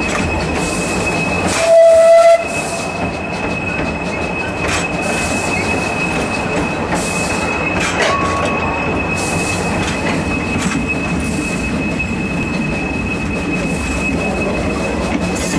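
Steam locomotive A10 No. 6 and its train running, heard from the tender: a steady rumble of wheels on rail with a steady high squeal over it. About two seconds in comes a short, loud blast of the locomotive's whistle.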